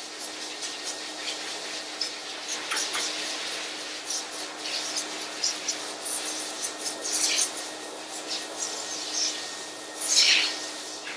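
High-velocity pet dryer blowing through a wet, curly dog coat via its hose nozzle: a steady motor hum under irregular scratchy, hissing bursts as the nozzle is worked through the fur, the loudest about ten seconds in.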